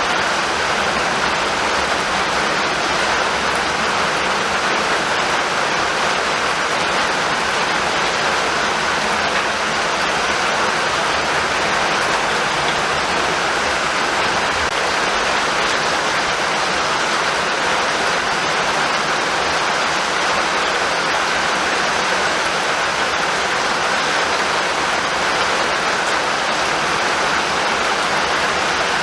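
Steady heavy rainfall, an even unbroken hiss of rain pattering on surfaces.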